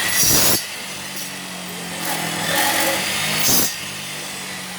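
A motor hums steadily, with two brief rasping noises, one just after the start and one about three and a half seconds in.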